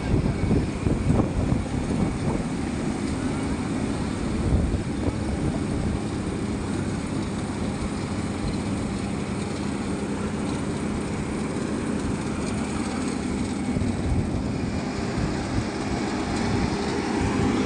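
Vögele Super 1800-3 asphalt paver's diesel engine running steadily under load as it lays bituminous concrete, a constant machine hum over a low rumble.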